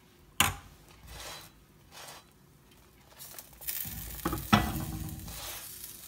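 Sizzling on a hot iron tawa as a bun is pressed down onto it: the hiss starts about halfway through, swells, then slowly fades. A sharp knock comes about half a second in, there are two short hisses before the main sizzle, and a couple of knocks come as it peaks.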